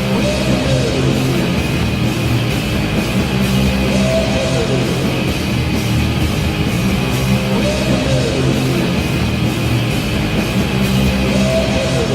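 Hard rock goal song with distorted electric guitars, from an NHL goal horn recording. A phrase repeats about every four seconds, each time ending in a falling slide.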